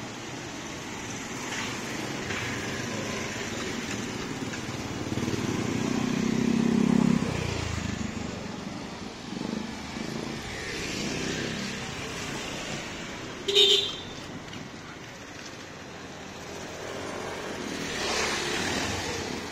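Street traffic of motorcycles and motorcycle-sidecar tricycles passing close by, the loudest pass about seven seconds in and another near the end. A short loud beep comes about two-thirds of the way through.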